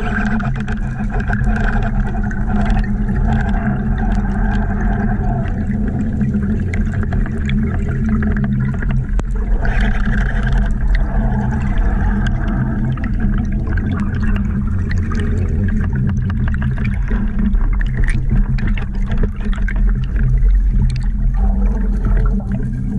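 Underwater ambience picked up by an action camera in its housing: a loud, steady low rumble with a constant low hum and scattered faint clicks.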